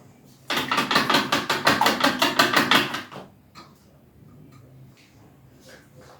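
A utensil beating rapidly in a bowl, about eight quick clinking strokes a second for roughly two and a half seconds, then stopping; typical of eggs being beaten.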